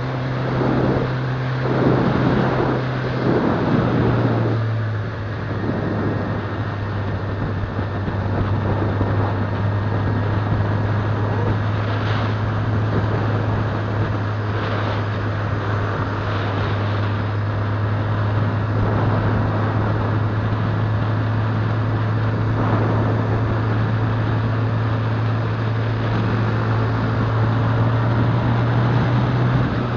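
Motorcycle engine running at a steady cruise, heard from the moving bike over wind and road noise; the engine note steps down slightly about three seconds in, then holds even.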